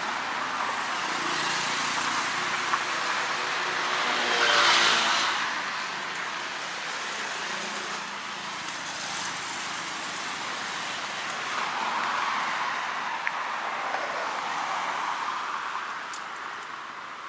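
Road traffic with vehicles passing, the loudest pass about four to five seconds in and a smaller one near twelve seconds.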